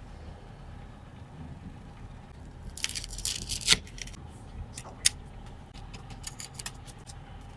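Small hard objects clicking and rattling as they are handled, with a dense flurry about three seconds in ending in one sharp click, another sharp click a second later, then a run of lighter clicks, over a low steady hum.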